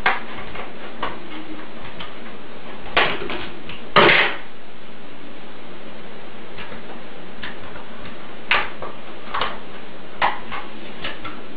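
Stiff plastic RAM packaging being opened: scattered crackles and clicks, the loudest a few seconds in, over a steady background hiss.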